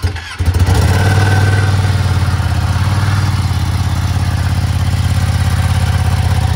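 2023 Ducati Panigale V2's 955 cc L-twin engine catching about half a second in and then idling steadily with an even pulsing beat, on its first start after an oil change.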